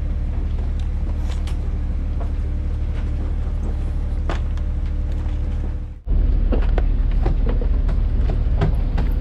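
An engine running at a steady low drone, with scattered knocks and clatter over it. About six seconds in it breaks off for an instant and comes back louder, with more knocking.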